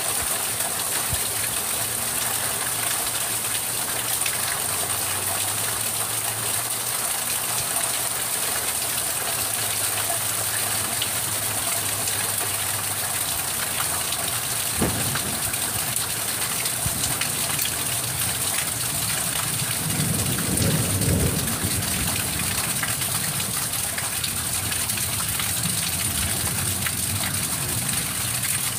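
Steady rain hissing, with a sharp crack about halfway through and a low rumble of thunder about two-thirds of the way in.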